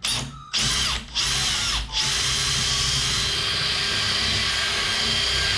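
Cordless drill drilling out an aluminium pop rivet: three short bursts in the first two seconds, then running steadily under load. The bit is too small to free the rivet, in the owner's view.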